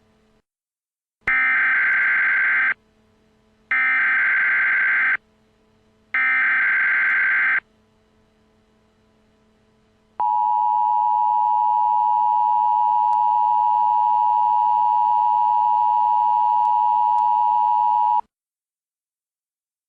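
Emergency Alert System tones: three identical bursts of harsh, screeching digital header data, each about a second and a half long, then after a short gap the steady two-tone EAS attention signal held for about eight seconds before cutting off suddenly.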